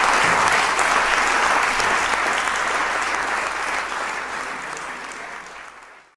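Audience applauding after a live jazz trio's piece, the clapping fading out near the end.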